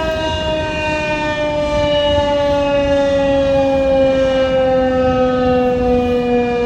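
Federal Signal 2001-130 electromechanical outdoor warning siren sounding loud, its pitch falling slowly and steadily as it winds down at the end of its three-minute Alert signal.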